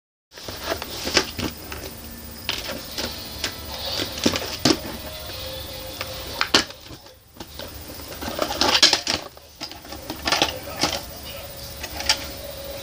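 Irregular plastic clicks and taps as a VHS cassette and its clamshell case are handled and opened, over a low steady hum.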